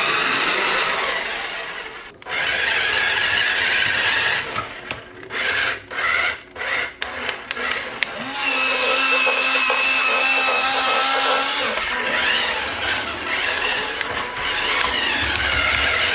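Small electric motors of a Veeniix V991 transforming remote-control car whirring, their pitch rising and falling. The whir breaks into short bursts a few seconds in, then a steady tone holds for a few seconds around the middle.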